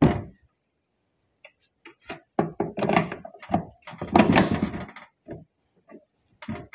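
Handling noise: a sharp knock at the start, then about three seconds of rustling and clunking, with a few scattered clicks near the end, as the metal track bar parts and the hand-held phone are moved about.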